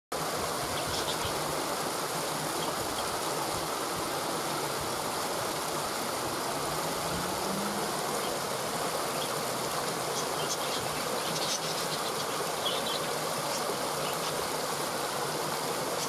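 Water of a small rocky stream cascade pouring over stones: a steady rush, with a few faint high chirps here and there.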